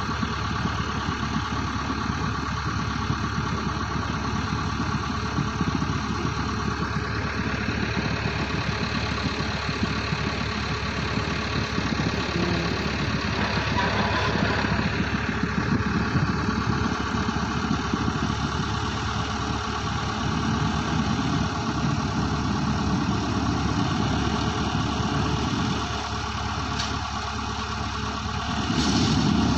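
Heavy machinery engine running steadily, growing louder near the end.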